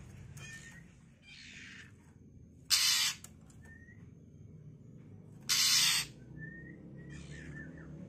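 Young Oriental magpie-robin giving two loud, harsh rasping calls about three seconds apart, each about half a second long. Fainter harsh calls and short, faint rising whistled notes come between them.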